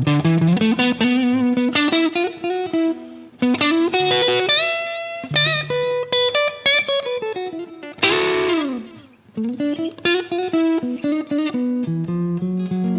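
Background music: electric guitar playing a lead line, with quick picked notes and bent, sliding notes.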